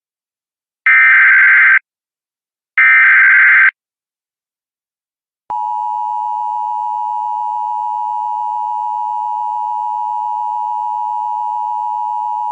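Emergency Alert System data tones: two harsh one-second bursts of the SAME digital code, the end-of-message signal closing a test. After a short gap, a steady attention tone starts about five and a half seconds in and holds.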